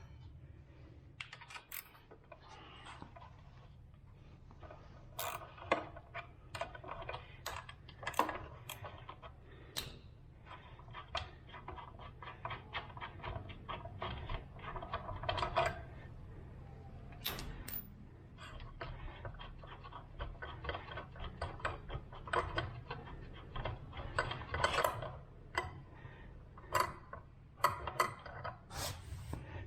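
Metal hand tools clicking and clinking in short irregular runs of rapid ticks, as the front through-axle of a motorcycle is loosened and worked out of the fork.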